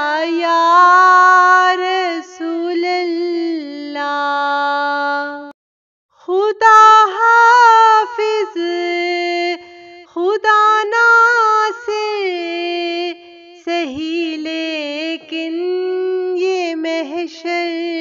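A single high voice singing an Urdu naat, a devotional song to the Prophet, in long held, wavering notes with no instruments. The singing breaks off briefly about five and a half seconds in.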